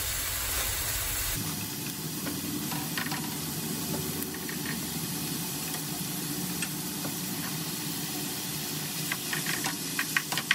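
Onions, red pepper and raw ground beef sizzling steadily in a frying pan over a low hum. Near the end come quick scraping strokes of a plastic spatula as the meat is stirred and broken up.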